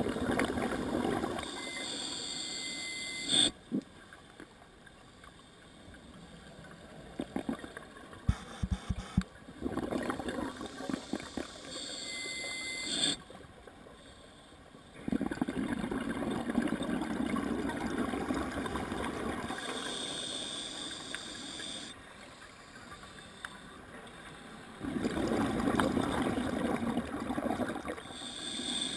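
A scuba diver breathing slowly through an open-circuit regulator, about four breaths. Each breath is a long bubbling rumble as air is exhaled, then a shorter hiss from the demand valve on the inhale.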